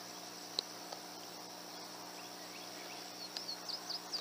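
Steady high-pitched chorus of crickets, with a single sharp click about half a second in and a few quick bird chirps near the end.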